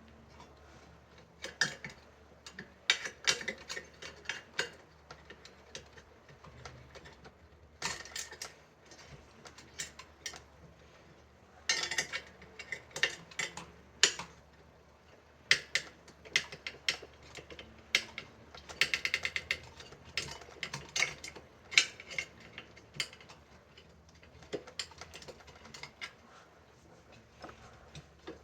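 Irregular metallic clicks and clinks of steel spokes and nipples being worked loose on a bicycle wheel, with a quick run of rapid clicks about two-thirds of the way through.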